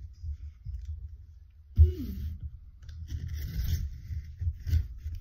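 Cardboard subscription box being picked up and handled, with rustling and scraping of cardboard and dull knocks. The loudest is a knock with a short falling tone about two seconds in.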